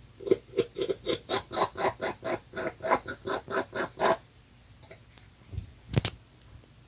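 An unseen animal gives a rapid run of short pitched calls, about six a second, for roughly four seconds. A single sharp click follows near the end.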